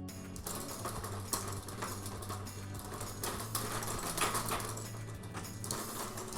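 Plastic spinning toy on a Fisher-Price Rainforest Jumperoo being spun, a fast continuous rattling clatter of small clicks, with soft background music underneath.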